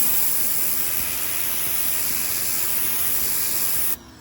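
Ryobi 1600 psi electric pressure washer with a turbo nozzle blasting water onto rough concrete: a loud, steady hiss of spray that cuts off suddenly near the end.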